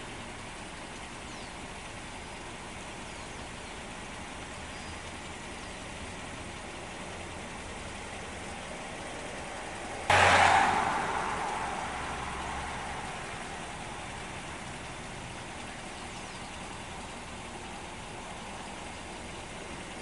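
Steady outdoor traffic noise. About halfway, a louder vehicle sound starts suddenly and fades away over a few seconds, like a vehicle passing and moving off.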